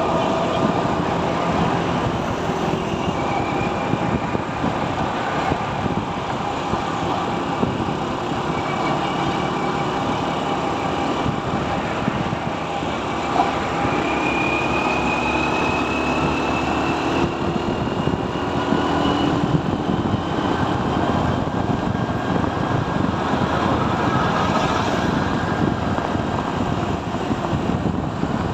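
A motorcycle running steadily while being ridden along a road, its engine note mixed with road and wind noise, the pitch drifting slowly up and down with speed.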